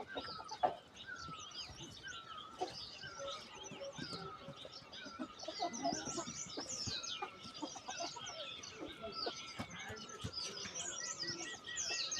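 A flock of chickens clucking, with many short, high chirping calls overlapping throughout.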